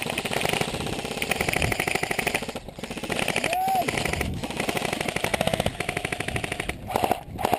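Airsoft electric guns firing long full-auto bursts, a fast, even rattle with a few short breaks between bursts.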